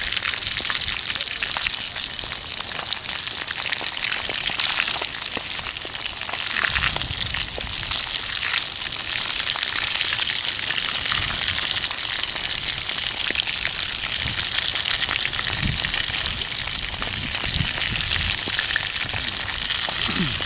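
Whole fish frying in vegetable oil in a metal wok: a steady, dense sizzle and crackle of hot oil as a spatula turns the fish.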